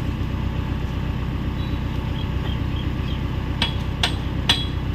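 Hyundai 85A excavator's diesel engine idling steadily, then from about three and a half seconds in a hammer starts striking steel, about two blows a second, each with a short metallic ring.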